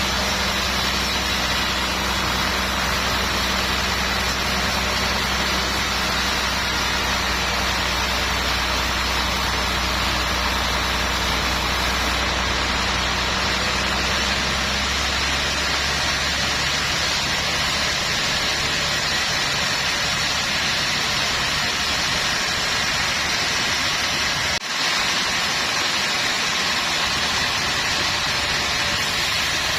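Sawmill machinery running steadily: a loud, even mechanical noise with a low engine hum underneath that fades out about halfway through, and a brief break near the end.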